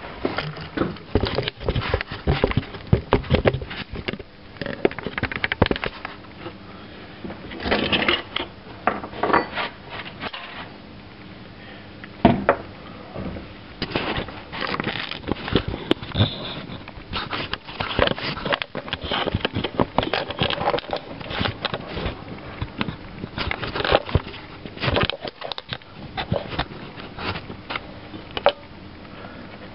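Irregular clicks, knocks and scrapes of metal parts and tools being handled on a cluttered workbench, with rustling close to the microphone between them.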